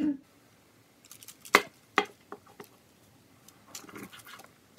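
Kitchen knife cutting through a baked sheet cake on parchment, its blade clicking sharply twice against the stone counter, then a few lighter taps and a soft scraping rustle near the end.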